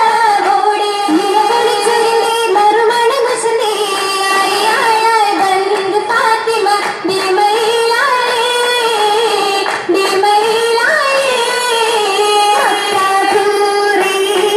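Female voices singing a Mappila song, the accompaniment to an Oppana dance, in one continuous melody.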